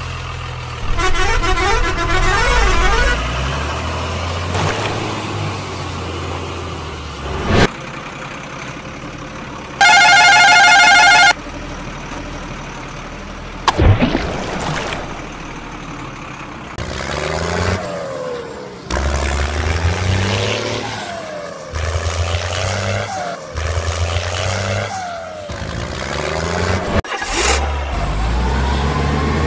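Vehicle engine sounds with a loud horn blast lasting about a second and a half about ten seconds in. Later, engine revs rise and fall several times, with a few sharp knocks between.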